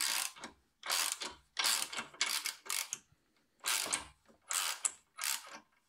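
Ratchet wrench clicking in short repeated strokes, roughly one a second with a brief pause about three seconds in. It is turning the bolt of a homemade press tool that is forcing a seized stud bolt out of the exhaust manifold flange.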